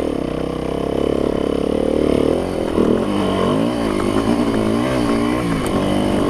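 Yamaha YZ dirt bike engine running under way on a trail. It holds a fairly steady pitch at first, then from about two and a half seconds in rises and falls again and again as the throttle is opened and closed.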